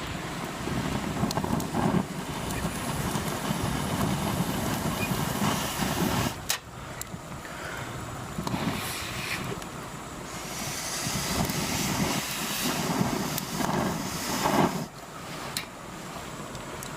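Breath blown through a telescoping fire-blowing pipe into a wood fire: long rushing puffs with short pauses for breath, a few sharp crackles from the fire.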